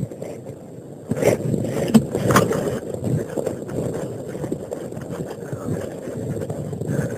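Low rumble of wind and handling noise on the microphone, with a few short scrapes about one and two seconds in.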